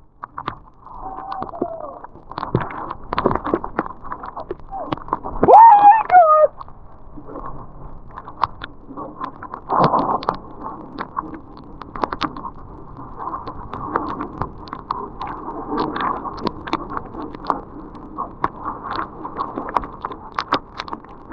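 Snowboard sliding and scraping over snow, with uneven rushing noise and many small clicks and chatters. A brief yell, bending in pitch, about six seconds in is the loudest moment.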